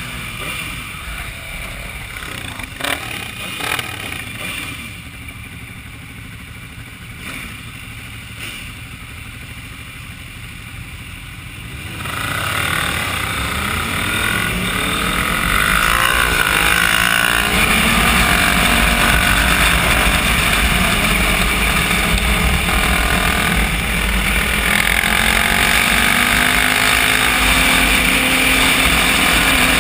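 Sport motorcycle engine heard from the rider's own bike, running quietly at first with a couple of short knocks about three seconds in. From about twelve seconds in the engine rises in pitch as the bike accelerates, then runs loud and steady with rushing noise for the rest.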